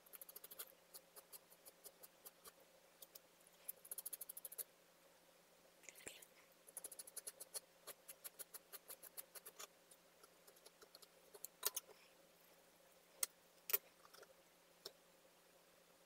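Metal palette knife scraping and tapping on a hard palette board while working tinted decorative plaster: quiet bursts of rapid fine scratching strokes, then a few single sharper clicks.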